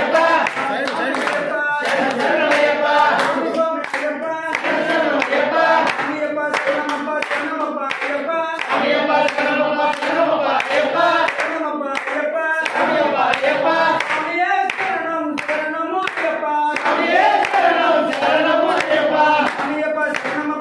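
Group of men singing an Ayyappa devotional bhajan together, with hand clapping keeping time throughout.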